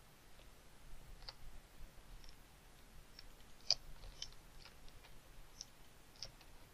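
Faint computer mouse clicks, about eight at irregular intervals, the loudest a little under four seconds in.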